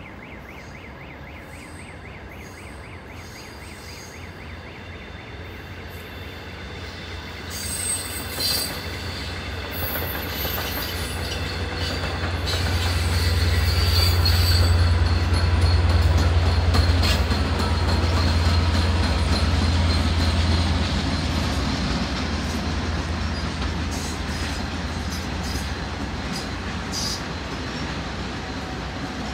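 Long Island Rail Road diesel-hauled passenger train with bilevel coaches passing by. It builds from about six seconds in and is loudest in the middle, a strong low hum with high wheel squeal over it, then slowly fades.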